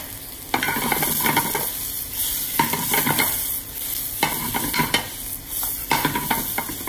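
Sliced carrots, onions, garlic and mushrooms sizzling in olive oil in a frying pan over a gas flame, stirred with a metal spoon and tossed in the pan in four bouts.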